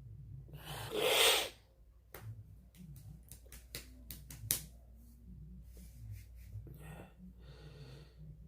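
A person's sharp exhale close to the microphone about a second in, then a string of light clicks.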